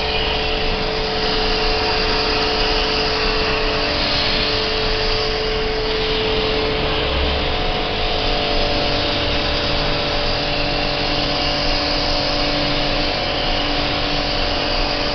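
Electric high-pressure washer pump running steadily, its motor hum shifting pitch slightly a few times, with water from the spray nozzle hissing against an air-conditioner's indoor coil.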